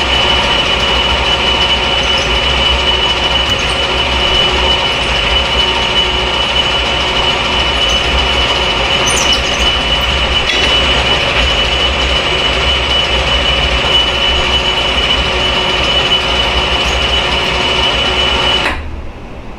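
Metal lathe running with a twist drill from the tailstock chuck boring into a spinning copper part, a steady machine noise with a high whine over a low rumble. It cuts off suddenly near the end.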